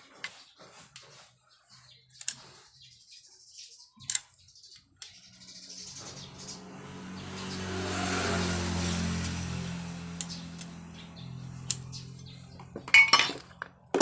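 A motor vehicle's engine passing by, swelling up and fading away over several seconds, amid small clicks and sharp metallic clinks of engine parts and tools being handled.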